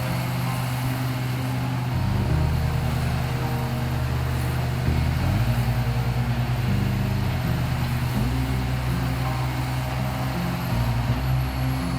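Large industrial drum wood chipper's diesel engine running, its low drone stepping up and down in pitch several times as it works.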